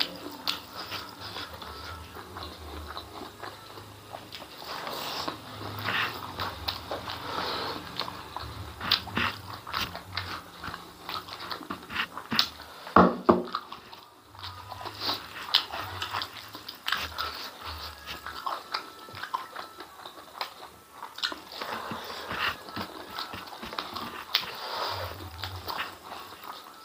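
Close-miked chewing of mouthfuls of rice eaten by hand, with soft wet sounds of fingers pressing and gathering rice on a banana leaf. One louder, sharper sound comes about halfway through.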